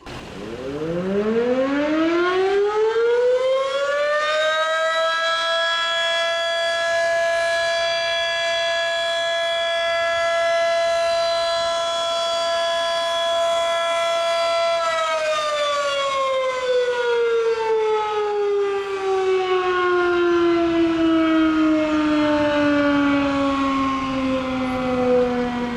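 Federal Signal Model 5 electromechanical siren sounding its monthly tornado-alert test. It winds up over about five seconds, holds a steady pitch for about ten seconds, then winds down with the pitch falling slowly.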